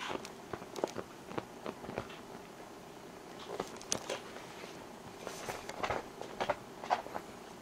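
A cat licking another cat's fur: irregular soft tongue clicks and rustles of fur, in an uneven rhythm.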